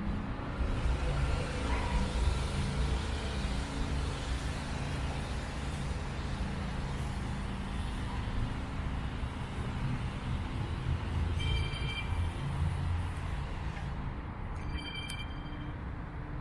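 Steady rumble of road traffic, with vehicles passing continuously. Two brief high squeaks sound late on.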